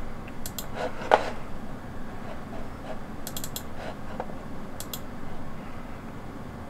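Light clicking at a desktop computer: a few scattered sharp clicks, a quick run of four or five about three seconds in, and two more near five seconds.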